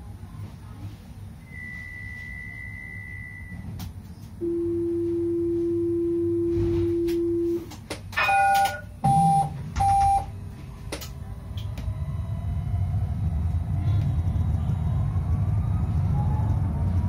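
Tram's warning signals at a stop: a short high beep, then a steady low tone for about three seconds and three quick beeps, typical of the door-closing warning. The tram then pulls away, with a low rolling rumble that grows louder and faint rising motor whines.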